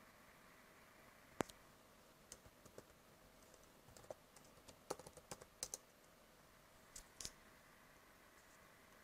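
Laptop keyboard being typed on: an irregular run of key clicks, one sharper tap about a second and a half in, the busiest stretch in the middle and a last pair near the end.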